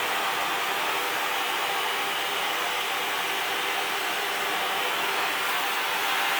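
Steady rushing hiss of a gas flame heating pieces of hardened steel axle toward cherry red, the first step in annealing them.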